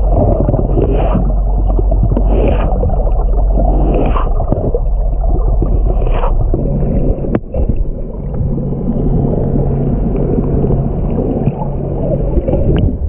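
Boat under way at sea: water rushing and splashing along the hull over a low steady drone, with surges about every second and a half early on. A click comes about seven seconds in.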